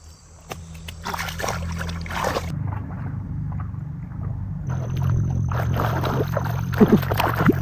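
Water splashing and sloshing as hands work through a shallow pond, in two bouts, over a steady low motor hum.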